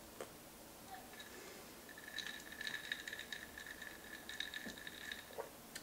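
Ice cubes clicking and rattling faintly in a drinking glass as it is sipped from and held, over a faint, high, steady whine from about a second in until near the end.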